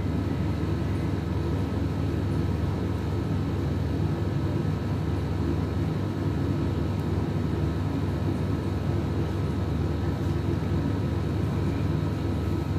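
Steady low mechanical hum with a few faint, steady high whines above it, unchanging throughout.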